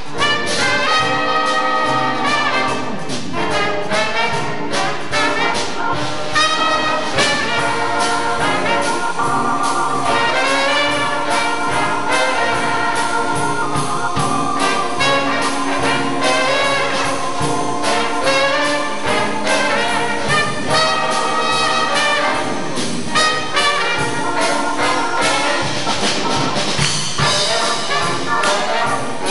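Live jazz horn band playing an up-tempo tune: baritone saxophone, trumpet and other horns in loud ensemble lines over a steady beat.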